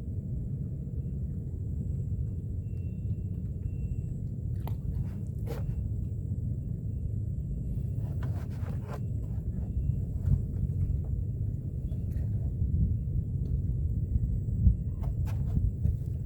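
Low, steady outdoor rumble, like wind on the microphone, with a few scattered knocks and clicks from handling or footsteps.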